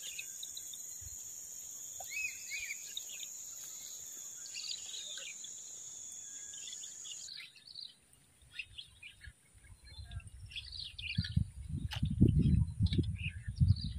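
Wild birds chirping with a steady high insect drone that cuts off abruptly about halfway through. In the second half, irregular low rumbling thumps come in and become the loudest sound.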